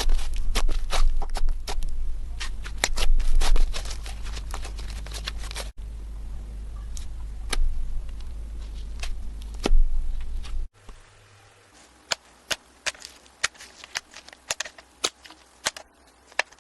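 Slime being pressed and played with by hand, giving a rapid run of sharp clicks and pops. The sound changes abruptly about six and eleven seconds in, the last part quieter with sparser pops.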